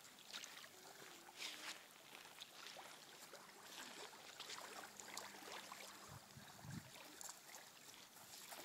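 Near silence: faint outdoor ambience with scattered light clicks and a couple of soft low thumps about six to seven seconds in.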